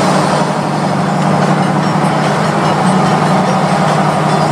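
Car driving at highway speed, heard from inside the cabin: steady engine and road noise.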